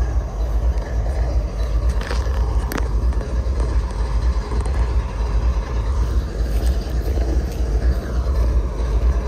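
Low, steady rumble of a stopped diesel freight locomotive idling, mixed with wind buffeting the microphone. A couple of light clicks about two and three seconds in.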